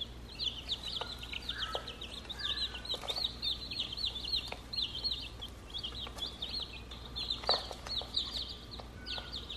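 A brood of baby Silkie chicks, only days old, peeping continuously: many short, high cheeps overlapping at several a second. A few light clicks are scattered through it.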